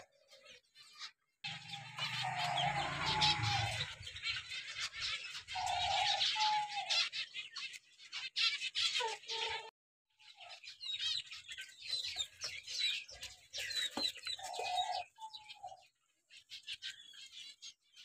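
Many small caged aviary birds chirping and twittering densely, with occasional short, lower single calls. The sound breaks off abruptly a few times.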